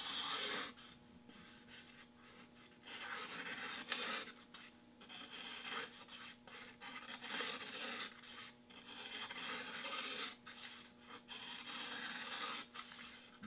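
Mora Bushcraft Black carbon-steel knife blade slicing thin curls off the edge of a sheet of paper in a series of faint, short strokes, about one a second. The clean, curling cuts are the sign of a razor-sharp edge after diamond honing and stropping.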